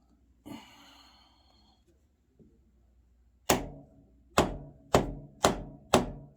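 Hammer blows on steel bar stock: five sharp, ringing strikes about half a second apart, starting a little past the middle. Before them, about half a second in, a brief scrape of metal.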